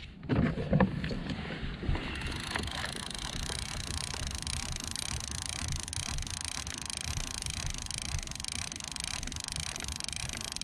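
A few knocks as the rod is handled, then a multiplier fishing reel being wound in steadily, a continuous even whirr from about two seconds in as the live bait is retrieved.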